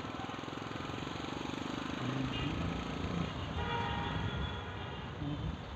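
Vehicle traffic with an engine running, in the manner of a motorbike.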